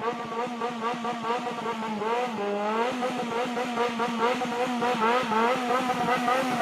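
Yamaha XJR400's air-cooled inline-four engine breathing through a Waltz Kikai exhaust with its silencer fitted, revved in a rhythmic throttle-blipping 'call' pattern. The pitch rises and falls over and over, with a longer rising sweep a little over two seconds in.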